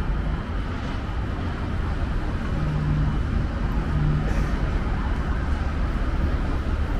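Road traffic noise: a steady low rumble of cars passing on the road under an overpass, with a low engine hum standing out for about a second and a half midway.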